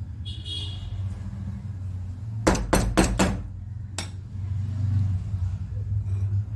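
Four quick hammer blows, then a fifth about a second later, struck to knock a jammed bit loose from a rotary hammer drill, over a steady low hum.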